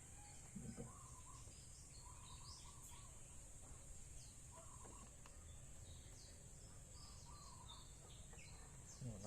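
Faint background of small birds chirping now and then over a steady high insect drone.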